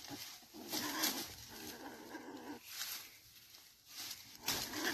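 A trapped wild animal giving a wavering growling call for about two seconds, then again near the end, with dry grass rustling and crackling in between as it is pushed aside.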